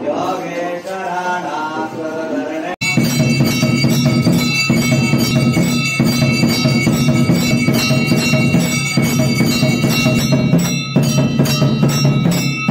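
A mantra chanted for the first few seconds, then an abrupt switch to loud Hindu devotional music thick with ringing bells over a regular percussion beat.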